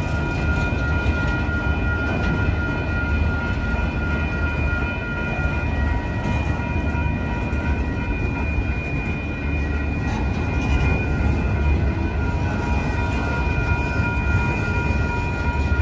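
Long freight train of autorack cars rolling past close by: a steady low rumble of wheels on rail, with a set of steady high-pitched tones held over it.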